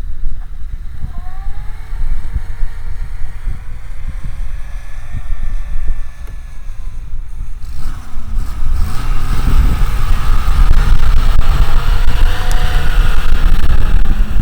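Off-road vehicle engine revving up and easing off twice, under heavy wind buffeting on the microphone. The sound grows louder and fuller from about eight seconds in.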